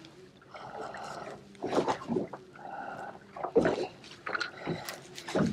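A dog making soft, irregular sounds, with a few faint knocks in between.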